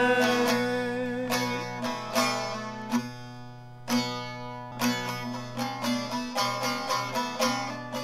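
Long-necked saz (bağlama) played alone: plucked melody notes over steadily ringing drone strings, thinning into a fading held note about three seconds in, then a fresh stroke and quicker plucked notes from about five seconds on.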